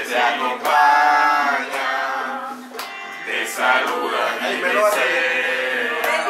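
A group of people singing together, men's and women's voices, in sustained sung notes.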